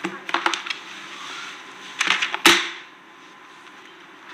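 A handheld digital voice recorder's buttons click a few times in quick succession. About two seconds in comes a loud, sharp whoosh that peaks and quickly dies away.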